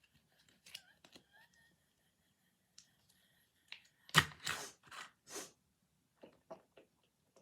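Squishy foam starfish toy being squeezed, letting out a cluster of about four short, noisy, fart-like bursts about four seconds in, followed by a few faint clicks.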